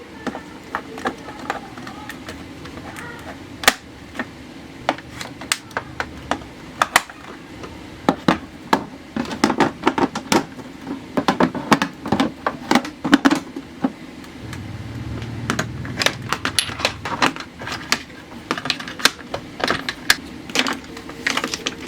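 Many quick, irregular clicks and clacks, like small hard objects being handled and set down, densest in the middle stretch.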